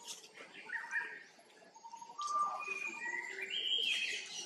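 Birds calling in clear whistled notes, each held at a steady pitch and stepping up and down between pitches, louder in the second half, with short rustling ticks.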